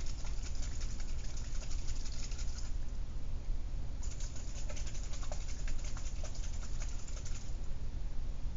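Small capped plastic vial of salt and water shaken by hand: a rapid rattling patter in two bouts, with a pause of about a second in the middle. A steady low hum runs underneath.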